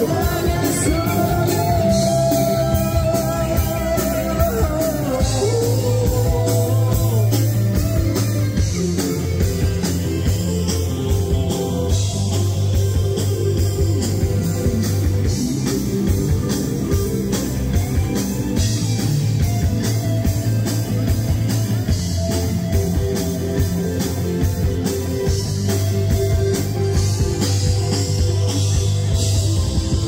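Live amplified rock band playing: a drum kit keeps a steady beat under guitar and bass, with a singer's voice in the first several seconds.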